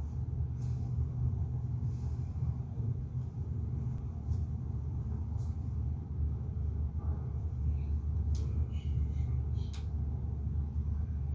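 Steady low rumble, with a few faint clicks and knocks now and then.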